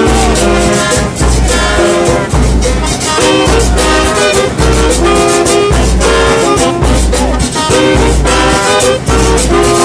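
Murga band music: a brass section plays the tune in held notes over a steady beat of drums and cymbals.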